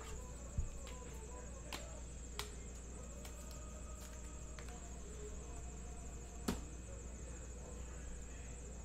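A few short, faint clicks and taps from hands handling trading-card packs and boxes, over a steady low electrical hum and a thin, high, steady whine.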